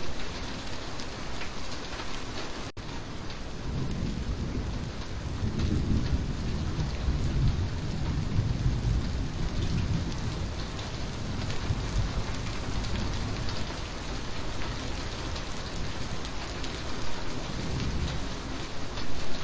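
Steady rain falling, with a long low roll of thunder building from about four seconds in and dying away around the middle.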